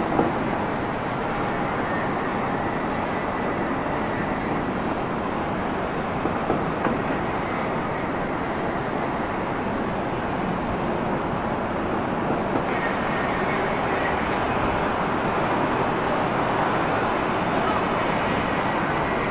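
Airliner's twin turbofan engines running at low thrust as it taxis on the runway: a steady rushing noise with a faint whine. Wind rumbles on the microphone throughout.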